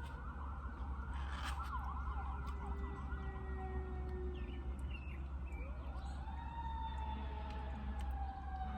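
Several emergency-vehicle sirens wailing at once, their pitches gliding over one another. There is a rapid yelp about a second and a half in, and a new wail rises about six seconds in.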